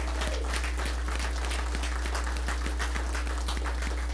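Congregation applauding, dense hand clapping throughout, over a steady low electrical hum.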